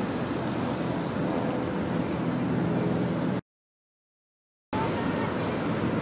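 Diesel freight locomotives running with a steady low engine rumble as the train approaches. The sound cuts out completely for about a second past the middle, then the rumble comes back.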